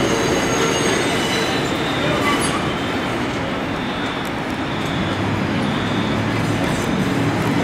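New York City subway train rolling over the rails with a steady rumble and rail noise. Faint high wheel squeal sounds in the first second, and a low hum joins about five seconds in.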